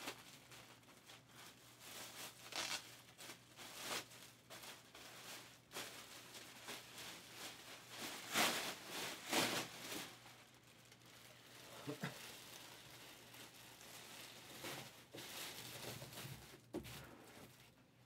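Faint intermittent rustling and crinkling, like paper or packaging being handled, with a few light knocks; the loudest rustles come about eight to nine and a half seconds in.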